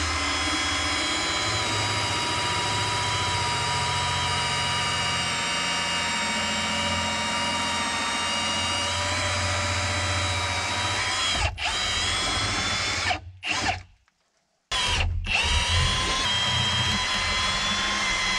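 A cordless drill runs steadily at full speed, boring bolt holes through rough-cut pine beams. About eleven seconds in it falters and stops, then starts up again a second or so later.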